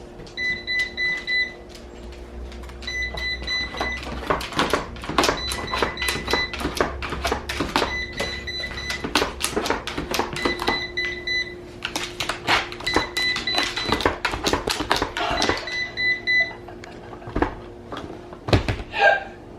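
Roomba robot vacuum stuck and sounding its error alarm, repeated runs of high electronic beeps, while a dog's paws and claws knock and scrape at it with many sharp clicks.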